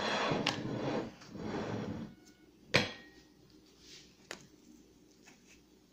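Kitchenware being handled on a countertop as ice cream is set out for serving: a rustling, scraping noise for about two seconds, then a sharp knock near the middle and a smaller one about a second and a half later.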